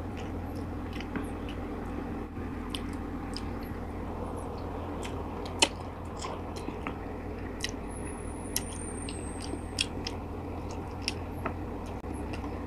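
Close-up chewing and gnawing on adobo-braised chicken feet, with short wet mouth clicks every second or so over a steady low hum.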